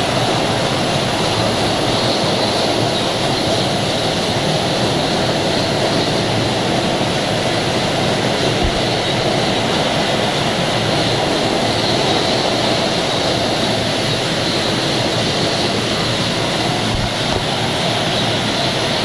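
Steady machine din of a running bottled-water production line: conveyors and filling machinery making a constant, even noise that does not let up.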